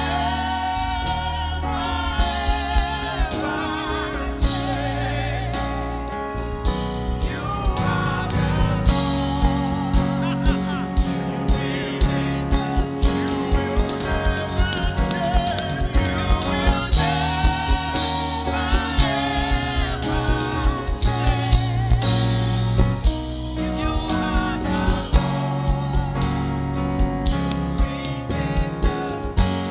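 Gospel praise music: singing with vibrato over a band with bass and a steady drum beat.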